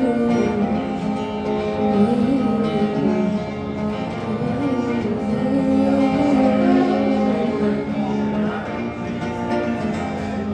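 Acoustic guitar playing the closing bars of a song, with some wordless singing over it.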